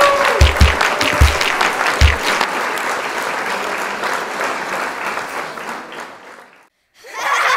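Upbeat background music with a thudding kick drum that stops about two seconds in, under applause that then fades out. Near the end, after a brief gap, a new burst of sound begins.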